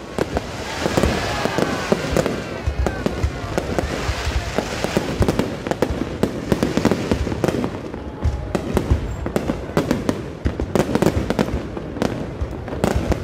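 Fireworks display going off: a dense, irregular run of bangs and crackling bursts.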